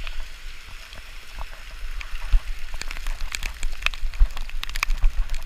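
Rain and water spattering, with many sharp drop ticks that grow denser after about two seconds, over a low rumble with occasional thumps.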